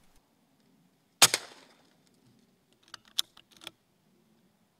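A single air rifle shot about a second in, sharp with a brief tail. About two seconds later comes a quick run of four or five small sharp clicks.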